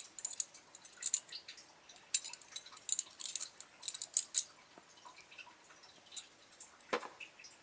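Small metal and plastic spinning-top parts clicking and ticking against each other as they are handled and fitted together, with a sharper knock about seven seconds in.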